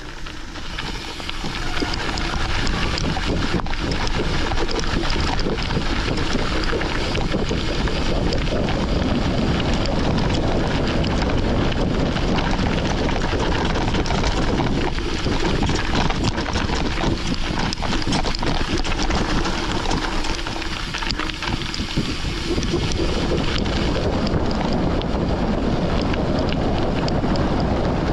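Wind buffeting the microphone, mixed with the rumble and rattle of mountain-bike tyres on a gravel forest road during a descent. The noise swells about a second in and eases briefly a few seconds before the end.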